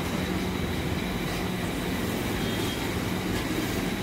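Steady mechanical hum with a constant low drone and even background noise, unchanging in level.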